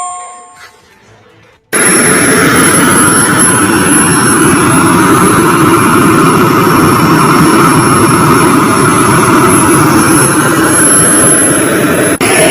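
A model jet plane's engine cuts in abruptly about two seconds in and runs loud and steady, a rushing jet noise with a thin high-pitched whine. It briefly drops out near the end. Before it, a two-note electronic tone fades away.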